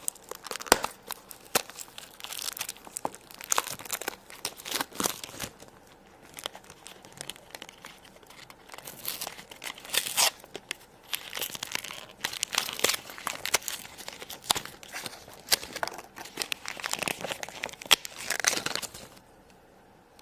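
Plastic packaging of a Shopkins basket surprise pack crinkling and tearing as it is unwrapped by hand, in irregular crackles and snaps that stop near the end.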